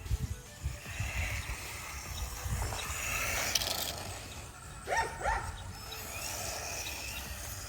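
Small electric motor of a Haiboxing 18859A RC truck running through wet grass, with two quick rising whines about five seconds in as it is throttled up, over a low uneven rumble.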